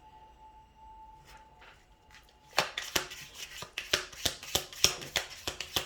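Tarot or oracle cards being shuffled by hand: a quick, irregular run of crisp card snaps that starts about two and a half seconds in, after a faint, near-quiet stretch.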